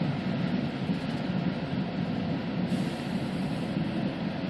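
Storm wind buffeting the phone's microphone: a steady, ragged low rumble.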